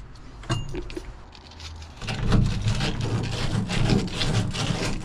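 Hole-saw shavings being wiped and brushed off the canopy bed by hand. There are a few light clicks, then a loud scrubbing rub starts about two seconds in and keeps going.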